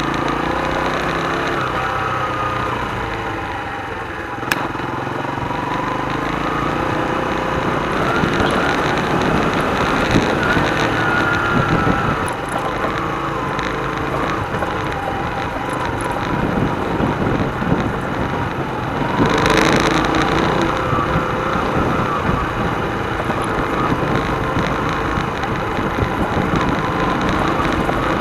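Hyosung Karion's 125 cc single-cylinder four-stroke engine running under way, its note rising and falling as the throttle opens and closes. There is a single sharp click about four seconds in, and a brief rush of noise about two-thirds of the way through.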